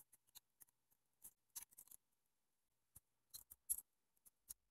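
Faint, scattered small clicks of a precision screwdriver and tiny screws against the metal chassis of a Canon PowerShot A70 digital camera as the screen's screws are driven in. The clicks come in small clusters, the loudest about three and a half seconds in.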